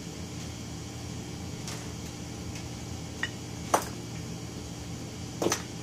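Small metal parts of a model steam engine being handled and set down on a workbench: a few light clicks and one short ringing clink, the sharpest a little under four seconds in, over a steady low hum.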